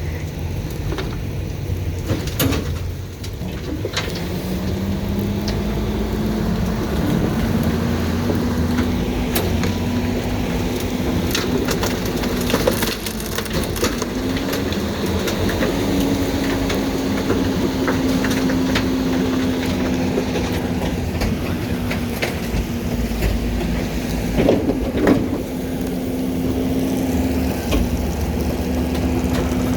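Heil garbage truck's engine speeding up about four seconds in and holding a steady raised hum while the hydraulic packer runs, with scattered cracks and snaps of bulky waste being crushed and a couple of louder knocks near the end.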